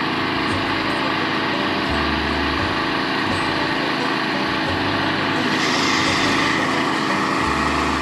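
Small gasoline engine of a power sprayer running steadily, with the hiss of the spray wand's jet. The hiss grows stronger a little past halfway.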